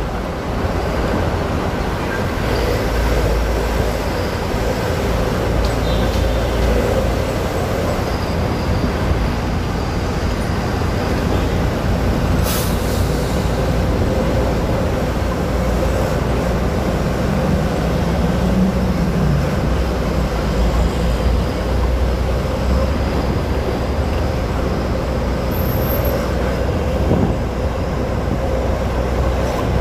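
Hino 500 concrete mixer truck driving, heard from inside the cab: a steady diesel engine drone with road rumble, and a single sharp click about twelve seconds in.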